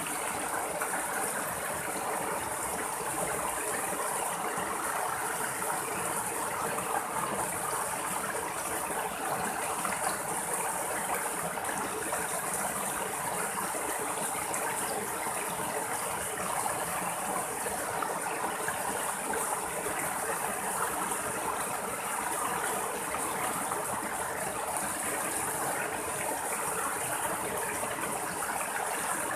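Water of a small rocky stream running steadily over little cascades between boulders, a constant splashing rush.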